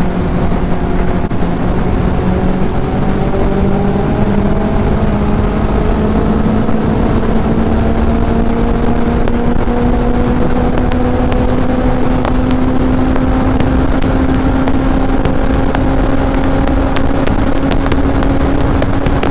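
Kawasaki Z800's inline-four engine pulling steadily under throttle at highway speed, its pitch rising slowly and evenly as the bike gathers speed in one gear, under heavy wind rush on the microphone.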